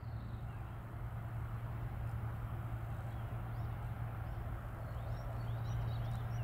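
Electric-hauled freight train approaching at a distance: a steady low hum over a rumble that slowly grows louder. Birds chirp faintly.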